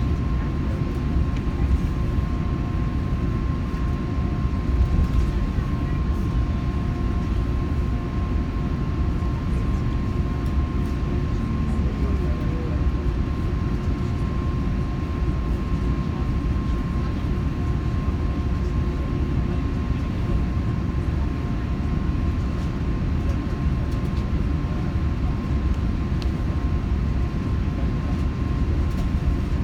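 Steady cabin rumble of a British Airways Airbus A380 and its Rolls-Royce Trent 900 engines heard from a window seat, a dense low roar with a faint steady hum over it and no change in power.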